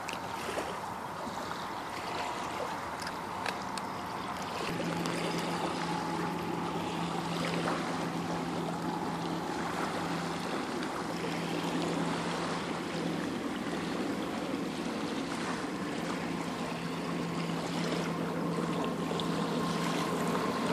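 Shoreline ambience: small waves lapping on a sandy beach under an even noise of wind and water. About five seconds in, the sound grows a little louder and a steady low hum joins in.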